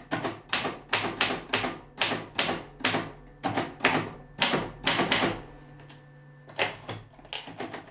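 Typewriter keys struck in a steady run, about three to four strikes a second. After a pause of about a second, a few more quick strikes come near the end.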